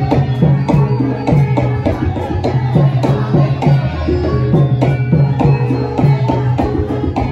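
Javanese gamelan music for lengger dance: deep kendang hand-drum strokes that bend in pitch, about two a second, over metallophones ringing steady notes.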